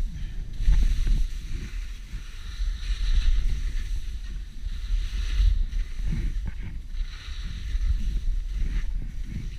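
Skis carving down packed, groomed snow, a scraping hiss that swells and fades with each turn, over wind buffeting the camera microphone.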